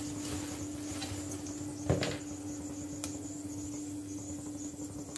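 Cumin seeds, dried red chillies and bay leaves frying gently in hot oil in a pot: a faint crackle and patter of tempering spices over a steady low hum. A single short knock about two seconds in.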